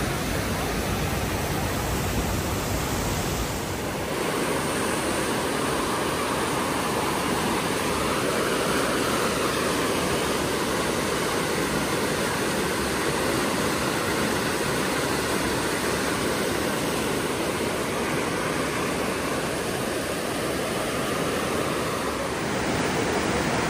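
Steady rushing of whitewater as Johnston Creek pours over a waterfall and through a narrow rock canyon. The rushing shifts slightly in tone a few seconds in.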